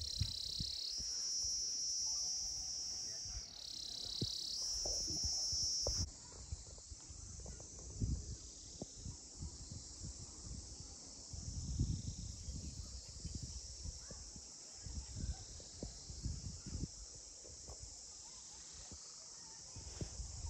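Outdoor insect chorus, a steady high-pitched buzz that dips briefly twice and then drops sharply to a fainter level about six seconds in. Scattered low rumbles sit under it.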